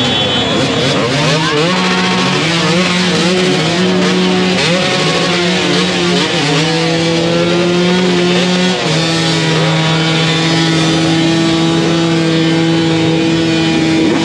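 Several off-road dirt bike engines revving over one another in a packed crowd. From about six seconds in, one engine is held at a steady high pitch.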